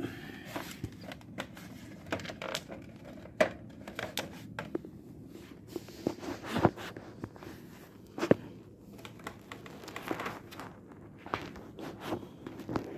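Scattered sharp clicks and knocks with rustling as the plastic casing and internal parts of an opened UPS are handled and pulled apart by hand.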